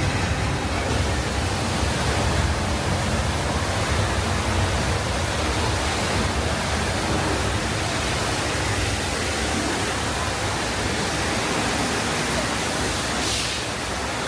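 Steady rushing noise from the studio tour's Earthquake special-effects set, like a torrent of flood water, with a short hissing swell near the end.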